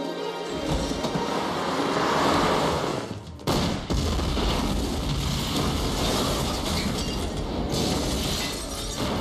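Film sound of a car blowing up: a sudden blast about three and a half seconds in, then several seconds of loud rumbling noise as the car is thrown into the air in a fireball. Film score music plays underneath.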